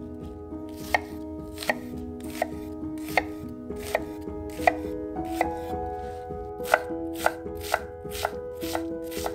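Chef's knife chopping a peeled onion on a wooden cutting board: sharp single strikes of the blade on the board, about three every two seconds at first, quickening to about two a second in the last few seconds. Soft background music with held notes plays underneath.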